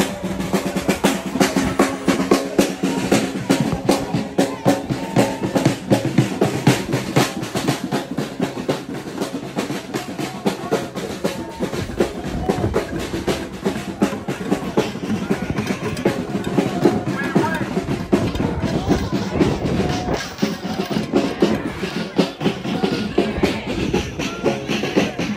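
A marching drum on a shoulder harness being beaten with sticks in a rapid, steady rhythm, with a crowd of voices around it.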